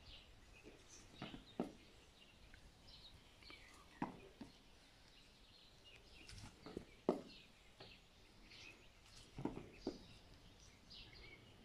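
Feet landing on the ground from side-to-side squat jumps: soft thuds, often two close together, every two to three seconds. Birds chirp faintly in the background.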